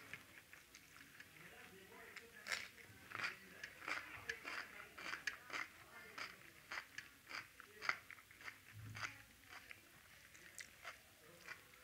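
Close-miked chewing of a mouthful of rice and besan curry, with crisp crunches and wet mouth clicks, densest from about two to eight seconds in.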